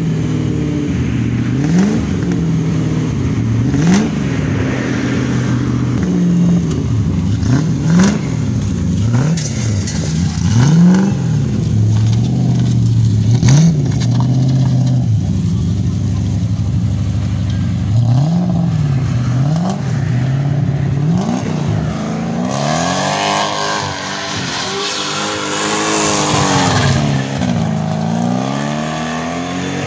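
Toyota Cressida with a swapped-in Lexus V8 engine, revved hard again and again in quick rises and falls. About two-thirds of the way in the engine is held at high revs and the tyres squeal as the rear wheels spin in a smoky burnout.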